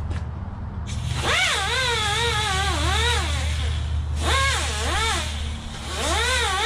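A 90-degree angle grinder with a 3-inch 36-grit disc, fed by an air hose, grinding the hard molded edges off a pre-molded foam seat cushion. It comes in with a hiss about a second in, and its whine sags and climbs again and again as the disc is pressed into the foam and eased off, with a short break near the middle. A steady low hum runs underneath.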